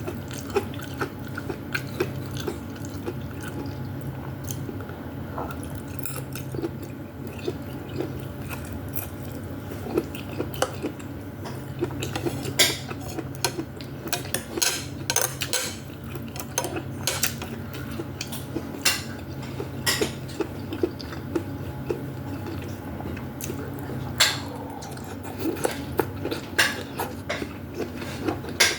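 Spoon clinking against a bowl again and again while soup with meatballs is eaten, with chewing in between, over a steady low hum.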